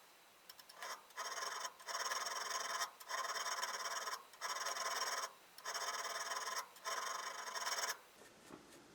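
Steel cutter wing of a brace auger bit being rubbed on a 600-grit sharpening plate: six steady back-and-forth strokes of about a second each, a dry rasping hiss.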